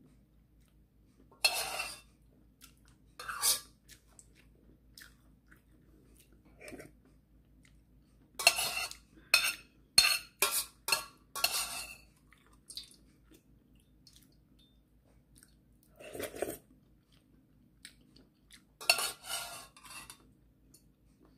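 Metal spoon and fork scraping and clinking against the inside of a stainless steel pot while the last of the ramyeon is scooped out, in short bursts with a quick run of them about eight to twelve seconds in. Between the scrapes come sips of broth and chewing.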